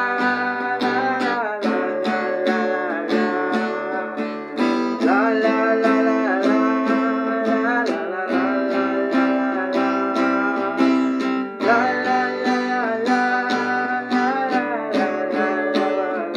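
Guitar music: a steadily strummed guitar with a sustained, gliding melodic line over it.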